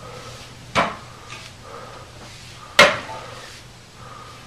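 Two sharp knocks, about two seconds apart, over a faint steady hum.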